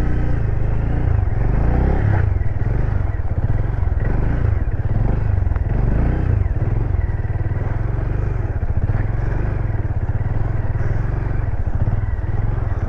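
Motorcycle engine running while being ridden, a steady low drone whose pitch rises and falls with the throttle.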